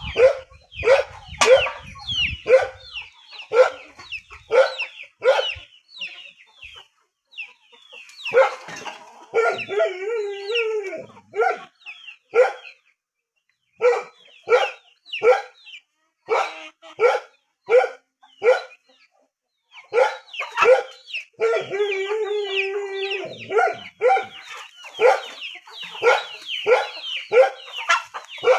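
Animal calls repeated in quick succession, about two short downward-falling calls a second, with two longer drawn-out calls of about two seconds each, one about a third of the way in and one about three-quarters of the way in.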